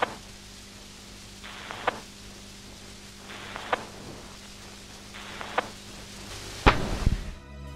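Cinematic sound-design effects over a bed of static hiss and a faint steady hum. Three short swells each snap off in a sharp click, about two seconds apart, and a deep boom with a low rumble hits near the end.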